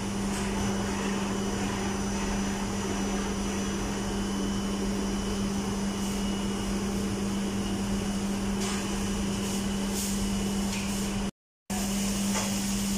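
Steady mechanical hum with an even rushing noise from commercial kitchen machinery, with a few faint ticks of handling. The sound drops out for a moment near the end.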